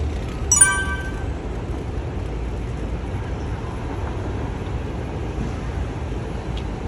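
Steady low rumble of street traffic, with a single brief metallic ding, like a small bell, about half a second in.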